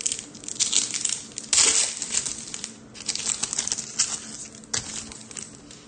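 Foil trading-card pack wrapper and cards being handled: a run of irregular crinkles and rustles as a pack is opened and the cards are shuffled through by hand.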